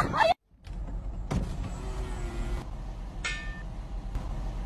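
Steady low rumble of street background noise, with one short high squeal about three seconds in.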